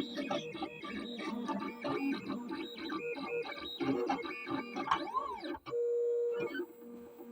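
Motors of a motorised craft machine running loudly with a warbling, spacey sound. It steps quickly through changing pitches with sweeping tones that rise and fall, then holds one steady hum for about a second near the end.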